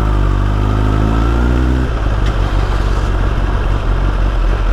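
A motorcycle engine running: a steady pitched engine note for about the first two seconds, then a rough, noisy rumble.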